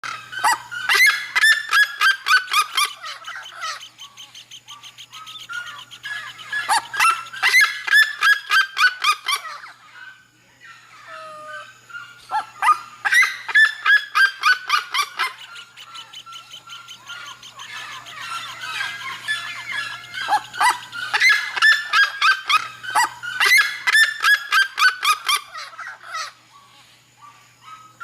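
Red-legged seriema calling: loud series of rapid yelping notes in bouts of about three seconds, five bouts with short lulls between them.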